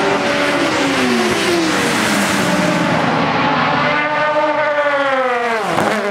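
Sports saloon race cars running past at speed, several engines at once. Near the end one engine note swells and then falls steeply in pitch as the car goes by, with a sharp dip as it lifts off or changes gear.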